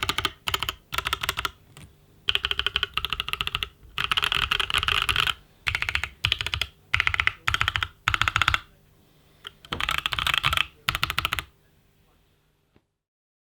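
Typing on an Idobao ID80 custom mechanical keyboard with Gazzew Boba U4T tactile switches lubed with Krytox 205g0 and PBT keycaps: fast runs of keystrokes in bursts with short pauses between them, stopping about eleven and a half seconds in.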